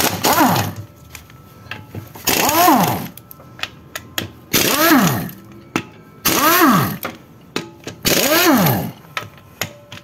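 Impact wrench loosening the front oil-pump bolts of a Turbo Hydra-Matic 350 automatic transmission: five short bursts about two seconds apart, each ending in a whine that falls in pitch as the motor spins down.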